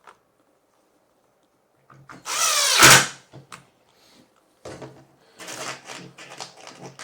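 Cordless drill/driver driving a screw to fasten a caster: one short burst where the motor whines up in pitch, then a longer, quieter, stop-and-go run of the drill near the end.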